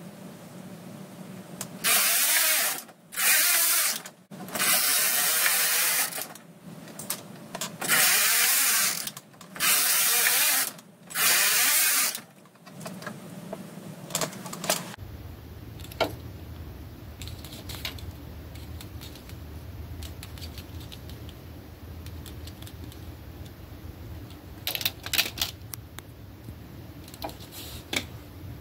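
Brother KH710 knitting machine's carriage run back and forth across the needle bed, knitting rows: six loud passes of about a second each. After them come a steady low hum and scattered light clicks of handling.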